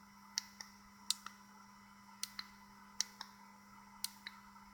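Small push-buttons on a DSO201 pocket oscilloscope clicking as its menu is scrolled. The clicks come in quick pairs, about once a second, five times, over a steady low hum.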